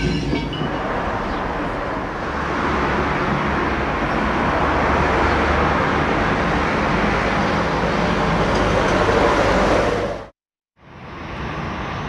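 Steady rumbling and rattling of a moving vehicle. It cuts off abruptly about ten seconds in, and after a brief silence a quieter steady noise begins.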